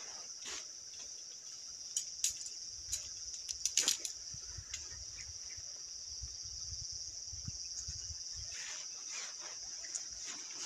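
Steady high-pitched chorus of night insects, crickets or similar, with a few sharp clicks and rustles between about two and four seconds in.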